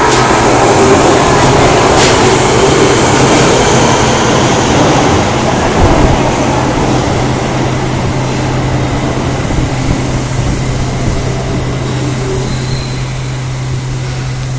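Osaka Metro 22 series subway train pulling out of an underground station, its running and wheel noise loud at first and then fading as it moves away, with a single thump about six seconds in.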